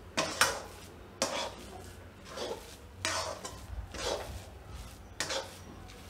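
Metal spatula scraping and stirring a thick, thickened coconut-and-mawa kopra pak mixture around a metal kadai, about one scraping stroke a second.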